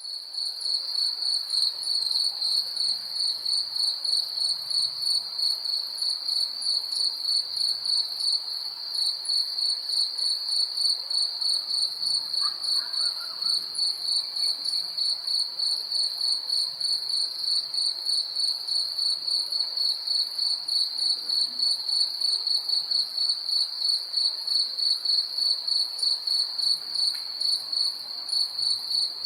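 A cricket chirping: a high, pulsing trill that repeats evenly and without a break, several chirps a second.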